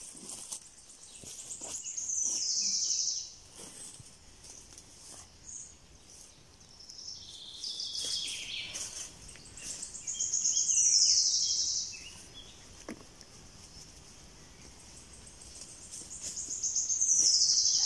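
A songbird singing the same phrase three times, about seven seconds apart: a fast, high trill that slides down in pitch at the end. A softer, lower bird phrase comes in between.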